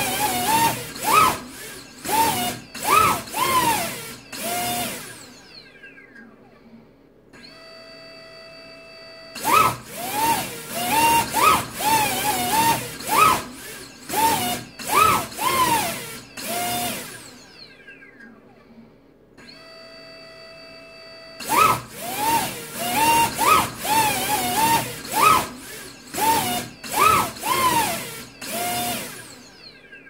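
Brushless motor driven by a BLHeli_32 ESC, punched up and down in repeated throttle sweeps, its whine rising and falling in pitch about once a second. Twice it drops to a quieter steady whine for a couple of seconds before the punches start again.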